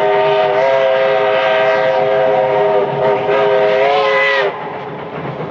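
Steam locomotive whistle blowing one long blast, a chord of several notes that rises slightly just before it cuts off about four and a half seconds in, leaving the quieter running sound of the train.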